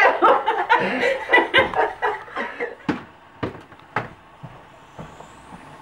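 A woman laughing for about two seconds, then three or four separate sharp knocks with quiet between them.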